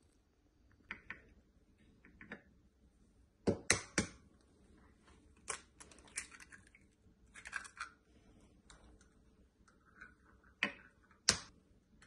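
Eggs being cracked one after another against a glass mixing bowl: sharp taps of shell on glass, with the softer crackle of shells being pulled apart between them.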